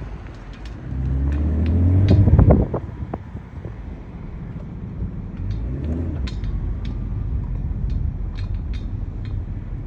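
A car driving, with a steady low rumble; its engine rises in pitch as it speeds up about a second in, and again more faintly near the middle. Short clicks come and go throughout.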